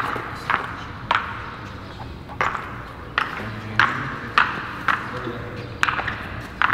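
Footsteps in spiked shoes on a wet epoxy floor coating: a sharp smack with each step, about one every half second to second.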